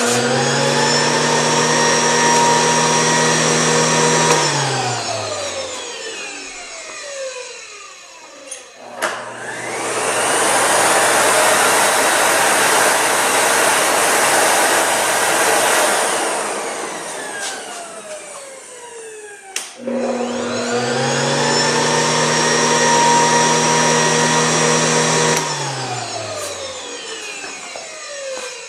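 Vacuum motors switched on one after another for a noise comparison, the Bosch 3931A-PB wet/dry vacuum among them. Each runs for about five seconds, then spins down with a falling whine. The first and last runs carry the same steady whining tones, while the middle run is a louder, hissier rush of air.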